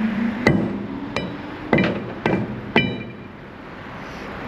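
Hammer blows on steel, five ringing strikes about half a second apart, driving the wedge into a crane's wire rope wedge socket to seat it.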